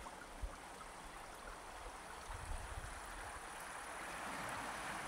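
Sea washing on a pebble and boulder shore: a steady hiss of surf that swells a little near the end, with low wind bumps on the microphone about two and a half seconds in.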